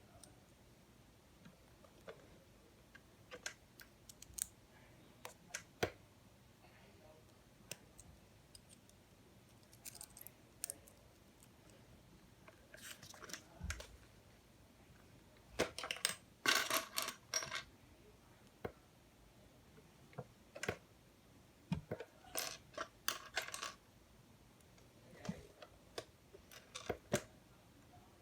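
Small plastic LEGO Technic pieces clicking and clattering as they are handled and fitted together: scattered single clicks with short bursts of rattling several times.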